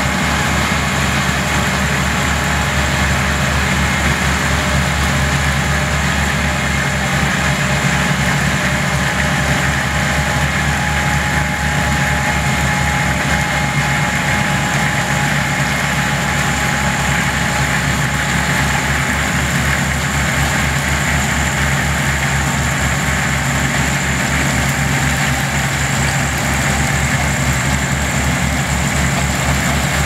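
Diesel engines of several Ploeger self-propelled pea harvesters running steadily as they work the field, with an even low engine throb.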